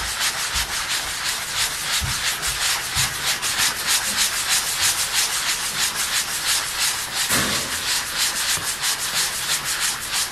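Hand sanding with a sanding pad: quick, even circular strokes scratching over dried wood filler on accent-wall trim boards to smooth it flush before painting.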